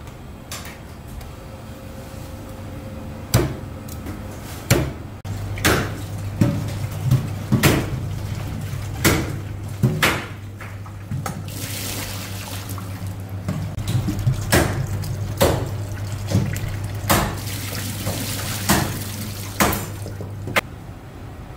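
Tap water running into a stainless steel bowl of peeled onions being rinsed and turned by hand in a sink, with repeated sharp knocks and clatters about once a second and a steady low hum underneath. Two knocks come before the water starts, about three and five seconds in.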